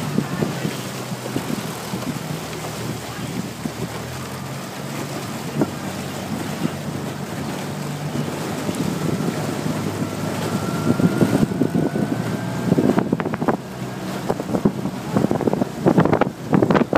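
A coaching launch's motor running steadily under wind buffeting the microphone and water rushing past the aluminium hull. In the last few seconds the buffeting and knocking grow louder and rougher.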